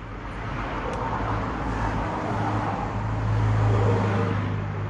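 A motor vehicle's engine hum that grows louder, is loudest about three to four seconds in, then fades, as of a vehicle passing.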